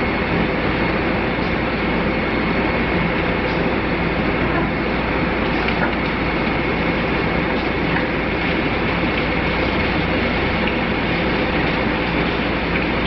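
Steady, loud mechanical running noise with a faint constant high whine and a few light ticks, unchanging throughout.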